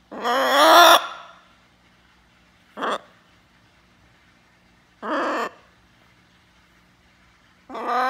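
Blue-and-gold macaw calling in four separate calls. The first is the loudest, a wavering call of about a second; a brief one comes about three seconds in, another about five seconds in, and a longer one starts near the end.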